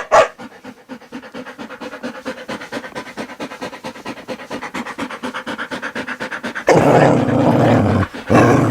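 Dog panting in rapid, even breaths. Near the end come two much louder rough, noisy bursts, the first about a second long and the second shorter.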